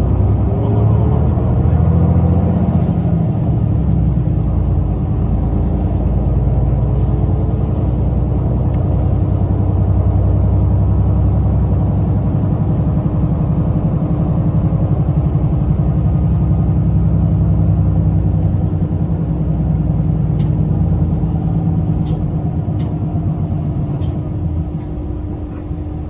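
Toei city bus driving, heard from inside the passenger cabin: a steady low engine and road rumble, with a rising whine in the first couple of seconds.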